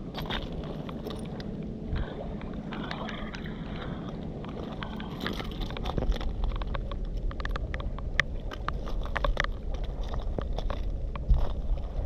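Low rumbling wind noise on the microphone. Many sharp clicks and crunches of stones and gravel come in from about halfway and grow louder.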